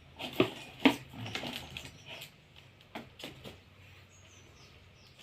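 Several sharp clicks and knocks, two loud ones within the first second and a few lighter taps later, as from objects being handled.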